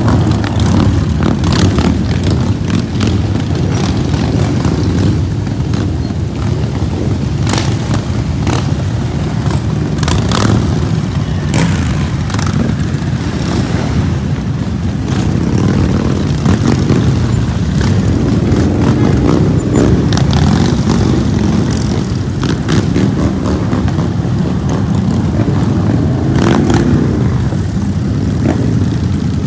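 Motorcycle engines running with a steady low rumble, with a few brief sharp knocks scattered through it.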